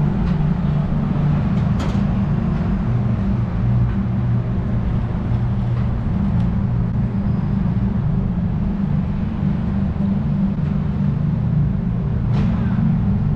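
Steady low engine rumble of road traffic, with a few faint clicks over it.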